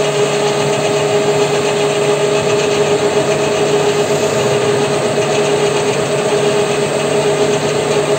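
WM210V benchtop metal lathe running with a steady whine, driving the carriage on power feed as a fixed cutter planes a spline groove into a steel axle shaft.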